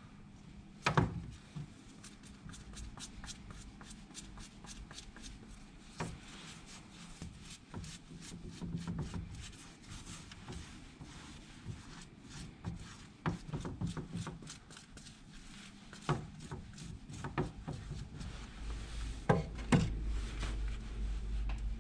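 Gloved hands handling soccer-shoe soles and a shoe upper on a plywood workbench: rubbing with many light, scattered taps and clicks, and a few louder knocks.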